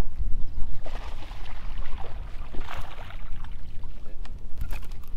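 Wind rumbling on the microphone and choppy water lapping against a fishing boat's hull, with a few short clicks or splashes near the end.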